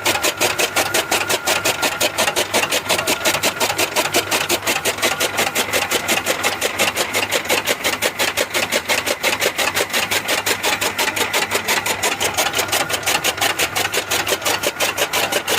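Motor-driven chaff cutter (fodder chopper) running steadily, a loud rapid rhythmic clatter of about six to seven strokes a second.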